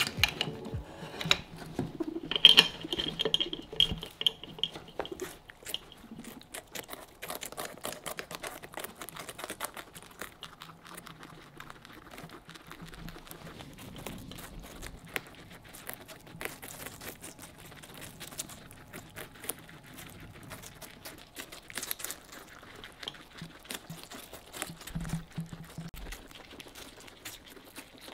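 Four guinea pigs chewing and crunching a slice of watermelon, a dense run of small clicks and crunches. A few louder knocks come in the first few seconds.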